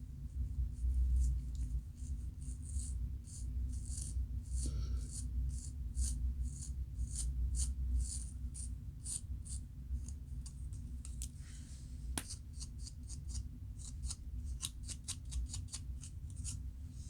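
Scratching at a scalp to loosen dandruff flakes: short dry scraping strokes, about two to three a second and coming faster near the end, over a steady low hum. One sharp click about twelve seconds in.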